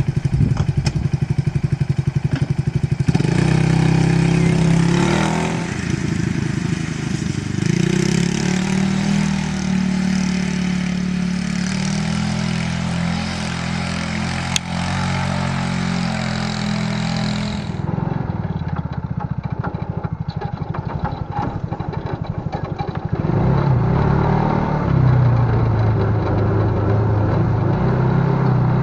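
Small off-road buggy's engine running as it is driven, its revs rising and falling repeatedly.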